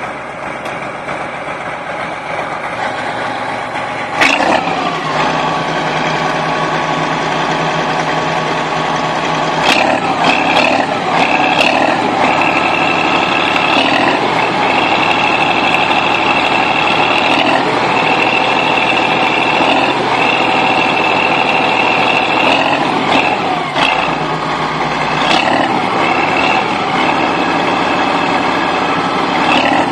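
Bulldozer's diesel engine working hard, with a steady high whine that comes and goes and a few sharp clanks.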